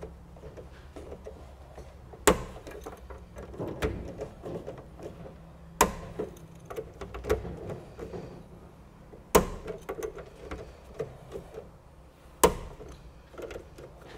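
Digital torque screwdriver set to 2 newton metres tightening RCBO terminal screws: four sharp clicks about three and a half seconds apart as the torque limit is reached on each screw, with softer ticking and handling between them.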